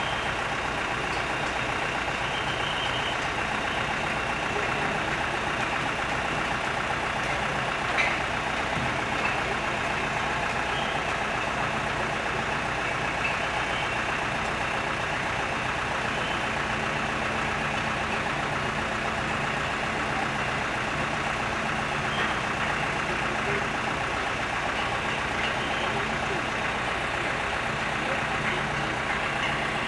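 Diesel engine of a truck-mounted mobile crane idling steadily, with a single sharp knock about eight seconds in.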